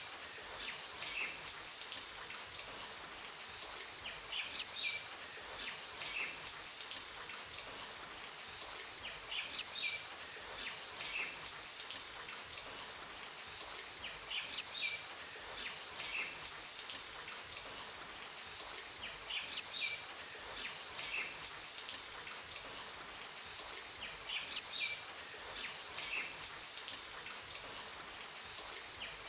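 Rain-and-birdsong ambience: a steady hiss of rain with a short run of bird chirps coming back about every five seconds.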